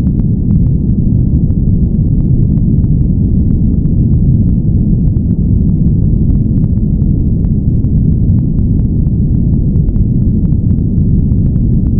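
Steady, deep rushing noise with most of its weight in the low range, a dull rumble rather than a bright hiss, with faint scattered clicks through it. It is the masking noise track of a subliminal recording, sold as white noise.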